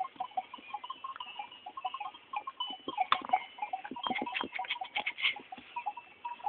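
A herd of goats on the move: many short, overlapping calls and scattered clicks, busiest from about three to five seconds in.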